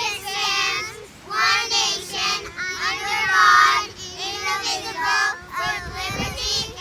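High-pitched, child-like singing over a steady held tone.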